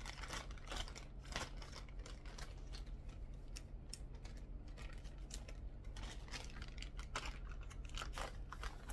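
Irregular small clicks and light rustling of hard plastic and metal parts and their packaging being handled, over a steady low hum.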